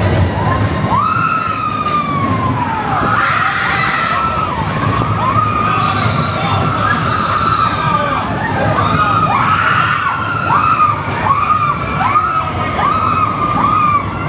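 Roller coaster riders screaming and whooping, a quick run of rising-and-falling yells one after another, over the low rumble of the coaster train.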